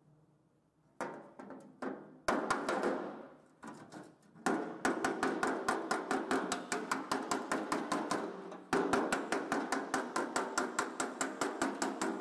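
A small body hammer striking the gas-welded seam that joins two thin aluminium car body panels, ringing off the metal. A few separate blows come first, then a long run of fast, even strikes, several a second.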